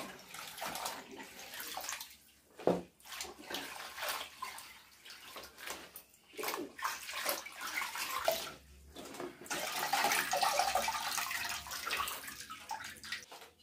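Water splashing and sloshing in a steel bucket as a handful of radish leaves is swished and lifted out by hand, in irregular splashes with a longer, louder stretch a few seconds before the end.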